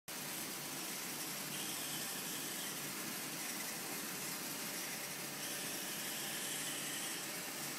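Steady, even hiss of room tone and recording noise, with no distinct clicks, tones or other events.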